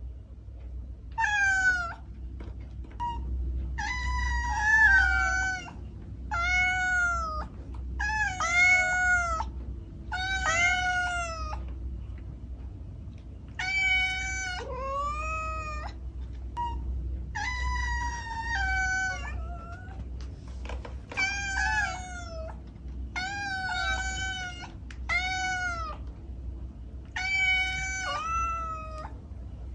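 Kitten meowing over and over: about fifteen short, high-pitched meows, each rising then falling in pitch, with short gaps between them.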